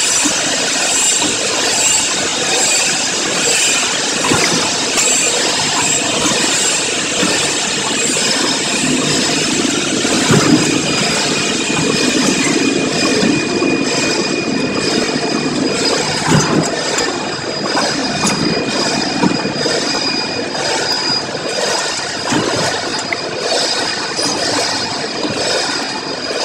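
Vertical form-fill-seal packaging machine running, making four-side heat-sealed pouches: a steady mechanical noise with a repeating beat as it cycles. A thin high whine joins about ten seconds in.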